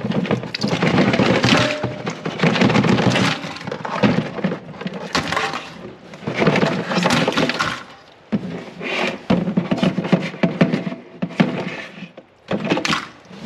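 Live blue crabs being tipped into a sink: their hard shells clatter and knock against each other and the sink in repeated bursts.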